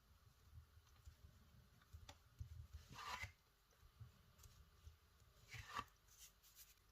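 Faint handling of plasticine clay on a work surface: soft low taps, with two brief rubbing scrapes, about three seconds in and again near the end.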